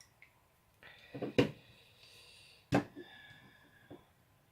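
Sharp clicks and taps of the electric shaver's plastic housing being handled and pried at to pop a part out, two louder clicks about a second and a half apart with faint squeaks of plastic between them.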